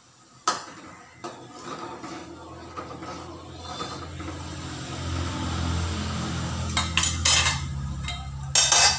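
Metal ladle scraping and clinking against a pan of coconut milk on a gas stove, over a low hum that grows louder through the middle. Several louder metal clatters come near the end.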